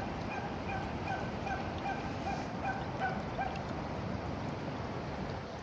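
A dog whimpering in a run of short, repeated high whines, about three or four a second, which stop about three and a half seconds in, over a steady rushing background.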